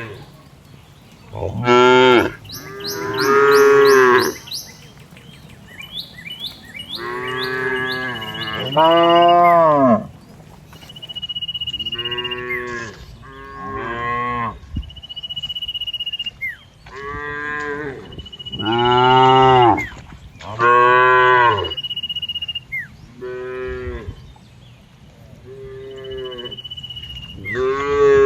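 Cows mooing again and again: a long string of drawn-out moos, each a second or two long, some much louder than others.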